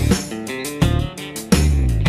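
Instrumental background music with strummed guitar chords.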